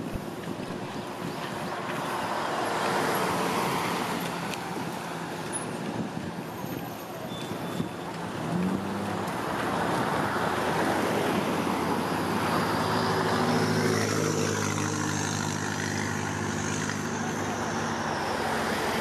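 Road traffic passing: vehicles go by one after another, their noise swelling and fading, with a steadier engine hum in the second half.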